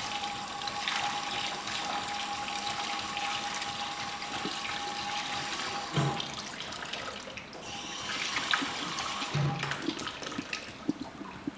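Water running from a foot-pedal-operated hospital sink tap, pouring steadily; it eases off briefly about six seconds in, then runs again.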